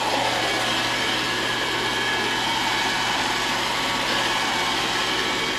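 iRobot Roomba 761 robot vacuum running, a steady whirring noise with a constant low hum.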